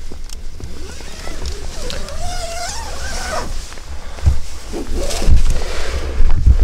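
Wind buffeting the microphone in low gusts, loudest in a few heavy thumps in the second half. About two seconds in there is a drawn-out, wavering voice-like call that rises and falls.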